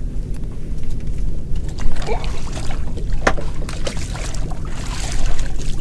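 Wind rumbling on the microphone and water washing against a small boat's hull, with a few sharp knocks and clicks of handling on board, the loudest about three seconds in.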